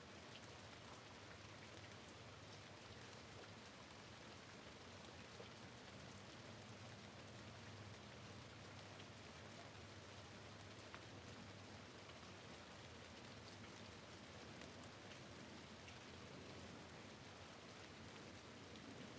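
Faint, steady rain at a window, with scattered ticks of single drops.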